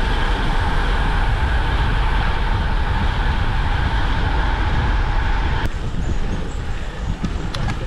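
Wind rushing over the camera microphone of a moving road bicycle, with road noise from the tyres on asphalt, a steady heavy rumble. About five and a half seconds in it changes abruptly to a quieter rush with a few sharp clicks.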